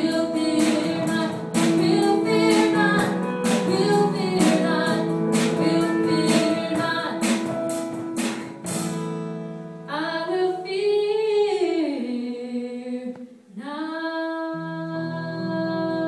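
Live band playing: a woman singing with a strummed acoustic guitar, keyboard and drum kit. About nine seconds in the drums stop, and long held notes carry on to the end.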